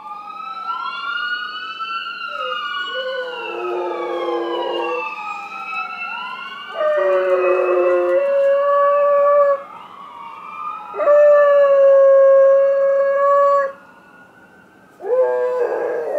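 Golden retriever howling along with an ambulance siren's rising and falling wail. The dog gives several long, steady-pitched howls, loudest a little past the middle, while the siren fades.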